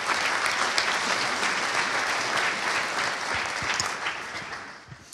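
Audience applauding, the clapping dying away over the last second or so.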